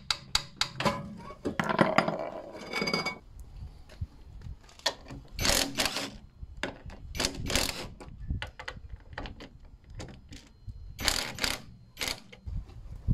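A ratchet and socket on the Mini's front shock absorber top mount nut, clicking in several short bursts of strokes, with metal clicks and a scraping of tools at the start.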